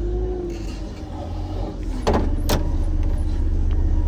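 Snow-moving loader's engine running, heard from inside the cab as a steady low drone that picks up about two seconds in. Two sharp knocks sound about half a second apart as it picks up.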